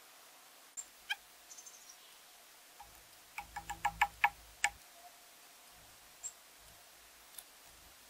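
Sharp taps of a white-breasted nuthatch's bill pecking at suet in a wooden log feeder: a quick run of about seven taps a little past the middle, with a few single taps before and after.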